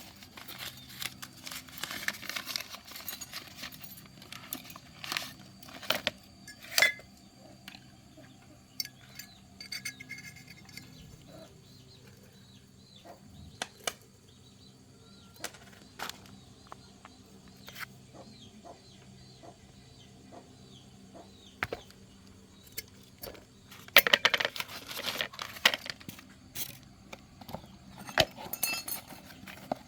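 Metal tools and engine parts clinking and knocking at irregular intervals, with a denser rattling clatter twice in the latter part.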